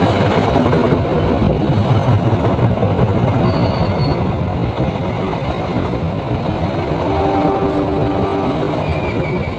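Diesel-electric locomotive and its train running past on the rails, a loud steady rumble of engine and wheels that eases slightly in the second half.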